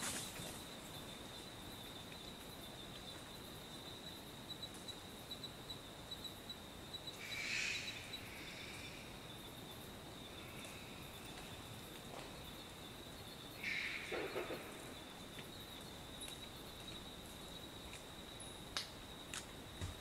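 Short-eared brushtail possum calling: two short, wheezy, noisy calls, one about a third of the way in and one about two thirds in, with a fainter one between them. A steady high-pitched insect trill runs underneath.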